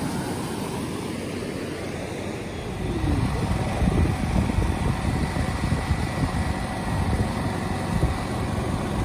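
Mountain river rapids rushing steadily. About three seconds in it gets louder, with an uneven low rumble added.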